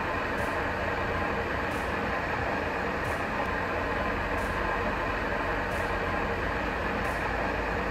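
Metal lathe running with a camshaft spinning in its chuck while the camshaft's thrust surface is turned down: a steady mechanical drone with a faint hum.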